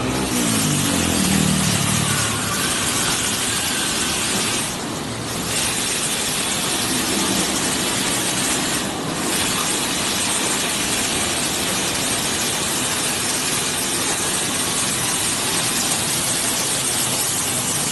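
Automatic car-wash rotating brush spinning: a loud, steady rushing noise, briefly dipping twice, about five and nine seconds in.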